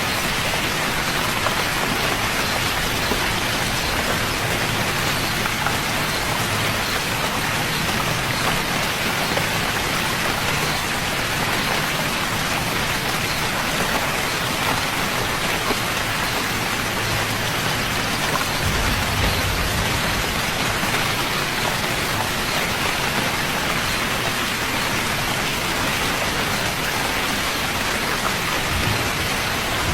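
Steady rain falling, an even dense patter of drops on surfaces, with a brief low rumble about two-thirds of the way in.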